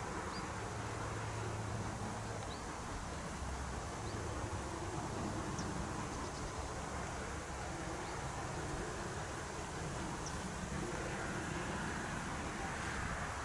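Outdoor ambience: a steady low rumble and hiss with a few faint, short bird chirps.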